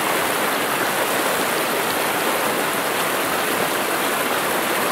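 Steady rush of a trout stream's flowing water.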